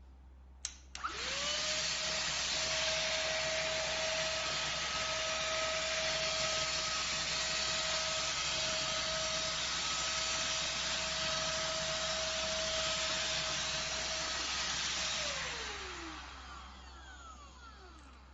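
ST6101 cordless handheld car vacuum cleaner switched on with a click, its motor spinning up to a steady whine over rushing air. It runs for about fourteen seconds, then is switched off and winds down, the whine falling in pitch as it fades.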